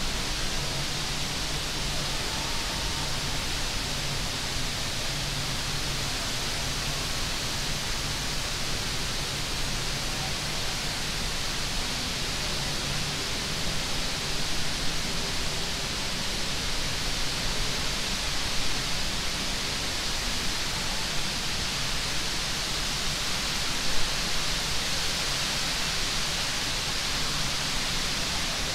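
Waterfall falling steadily: an even, unbroken rushing hiss.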